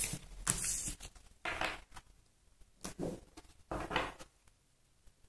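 Tarot cards being picked up off a table and tapped together into a stack: about five short papery swishes and taps, roughly a second apart, with quiet between them.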